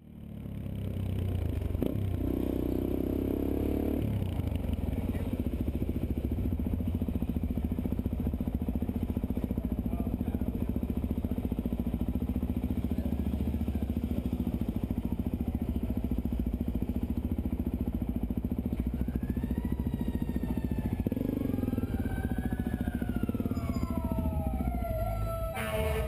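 Suzuki DR-Z400 supermoto's single-cylinder engine idling steadily. From about 19 seconds in, a siren wails over it, its pitch gliding up and down.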